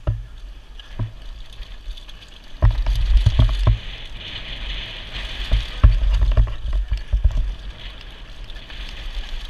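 Mountain bike riding fast down a dirt trail, heard from a helmet-mounted action camera: wind buffeting the microphone in two heavy stretches of rumble, about three and six seconds in, over a steady hiss of tyres rolling on dirt, with scattered knocks from bumps in the trail.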